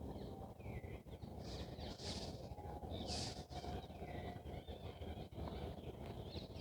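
Dawn chorus: several birds calling and chirping in short, pitch-bending notes over a low, steady background rumble, with two brief hissing sounds about two and three seconds in.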